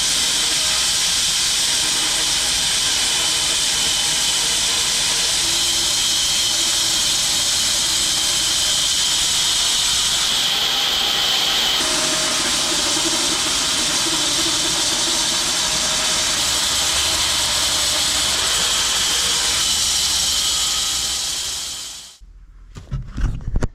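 Home-built 6 ft wide bandsaw mill running steadily as it saws through a log, a loud, even hissing machine noise. It stops suddenly near the end, followed by a few knocks.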